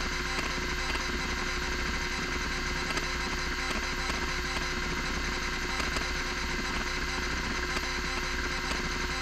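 Miniscribe 3425 20 MB MFM hard drive running: the spindle motor gives a loud, steady whine while the stepper motor ticks rapidly as it moves the heads from track to track during a seek test.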